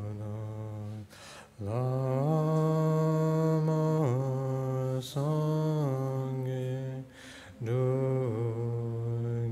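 A man's low voice chanting a Buddhist prayer in long held notes, the pitch stepping up and down between phrases. He pauses for breath about a second in and again about seven seconds in.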